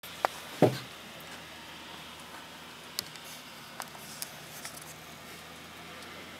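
Camera handling noise: a sharp click, then a heavier thump about half a second in, then a few light clicks, over a steady faint hiss of room tone.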